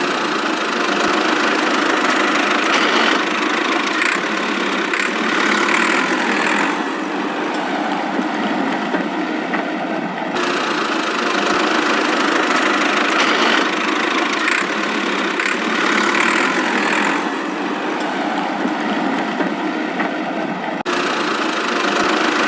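A small motor of a homemade mini construction machine running steadily with a dense mechanical whir. The sound shifts abruptly about ten seconds in and again about twenty-one seconds in.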